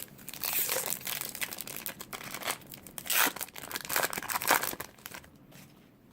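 Plastic baseball card pack wrapper being torn open and crinkled, a run of irregular crackling and ripping that dies away about five seconds in.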